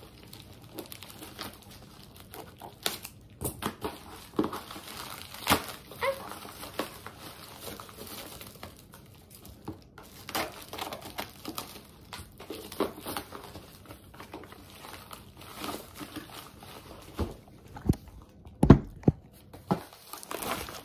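Parcel wrapping crinkling and rustling as it is handled and cut open with scissors, with scattered snips and clicks. One louder knock comes near the end.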